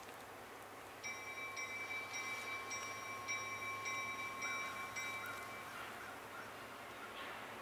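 Railroad bell ringing faintly and steadily, struck about twice a second for roughly five seconds, starting about a second in.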